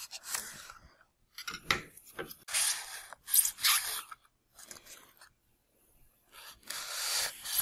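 Knife blade cutting through a glued layered model blank: a series of short scraping strokes with pauses between them, the last one longer, near the end.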